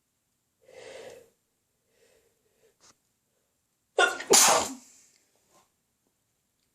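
A single loud, sudden sneeze about four seconds in, preceded by a softer, shorter breathy sound about a second in.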